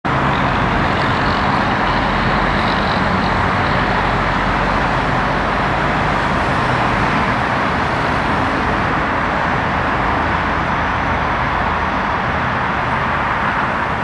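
Steady road traffic: a continuous wash of car noise that holds at one level without letting up.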